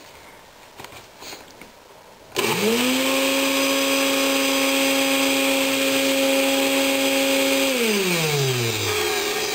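A 1.5 HP Shop-Vac wet/dry vacuum motor switched on about two seconds in, spinning up fast to a steady whirr with a rush of air, then switched off near eight seconds and winding down, its pitch falling. The whirring is the fault being chased, along with the motor running hot and smoking a little.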